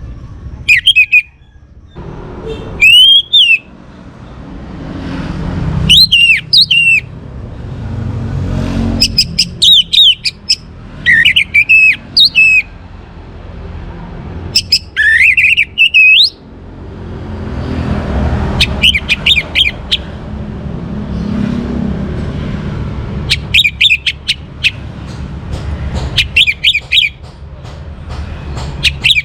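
Young orange-headed thrush (anis merah) singing loud, rapid phrases of rising and falling whistles, about ten bursts a few seconds apart. A low rumble swells and fades between the phrases.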